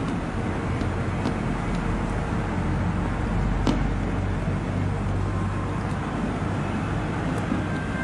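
Steady background hiss with a low hum, and a few faint ticks as a ukulele string is handled and fed through the bridge.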